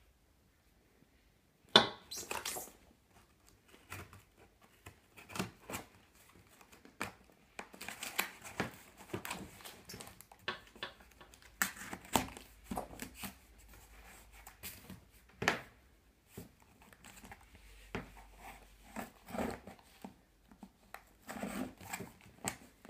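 Scissors cutting and tearing packing tape along the seam of a cardboard box, with the cardboard and tape crinkling. Irregular snips and rips come and go, the sharpest about two seconds in.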